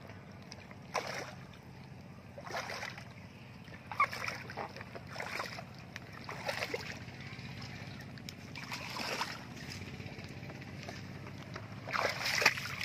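Splashing of legs wading through shallow water, a short splash with each step at uneven intervals of one to two seconds, loudest near the end.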